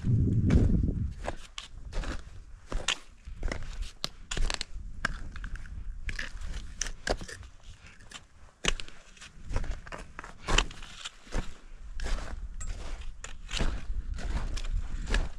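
A hiker's footsteps crunching in an irregular rhythm on the mountain trail. A low buffeting on the microphone in the first second is the loudest thing.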